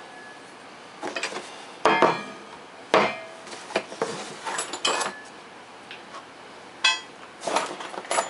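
Small AR500 steel armor plate handled and set down on a wooden table, with paper and cardboard mailer rustling and three sharp metallic clanks, the one near seven seconds in ringing briefly.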